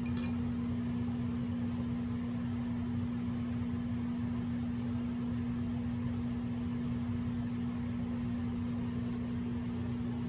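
Steady hum of a running household appliance, holding one constant low tone.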